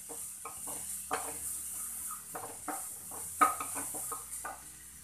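Wooden spatula stirring and scraping onions and tomatoes in a kadhai, a string of short scrapes and knocks against the pan with one louder knock about three and a half seconds in, over a steady sizzle of the vegetables frying in oil. The strokes stop near the end.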